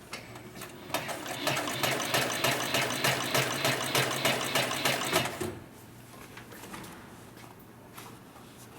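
A 204-370 heavy-duty upholstery sewing machine stitching in a steady rhythm of about three stitches a second. It starts about a second in and stops after about four and a half seconds.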